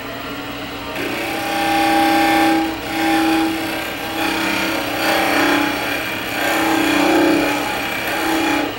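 Wood lathe running while a gouge shear-scrapes the spinning end of a small cocobolo piece: a steady hum under a scraping cut that swells and eases over several careful passes. This is the smoothing stage before sanding.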